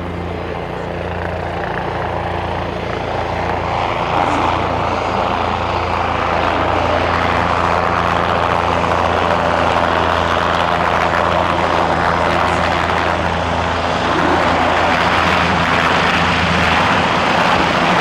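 Bell 407 helicopter running, its single turboshaft engine and four-blade main rotor giving a steady low drone under a broad noise. It grows louder over the first few seconds and a little more near the end.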